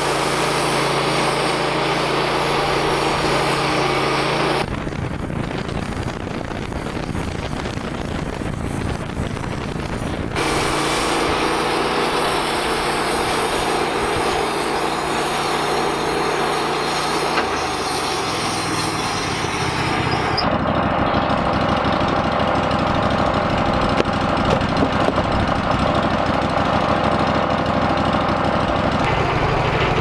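Wood-Mizer LT15 portable bandsaw mill running steadily while its band blade cuts through a large cedar log. The tone jumps abruptly a few times.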